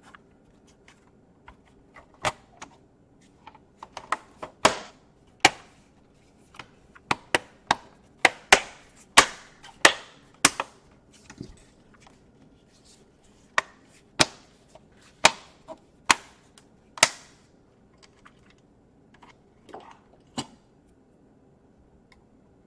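Irregular sharp clicks and knocks of plastic laptop parts and tools being handled and fitted while a laptop is reassembled. They are thickest in the middle and thin out near the end.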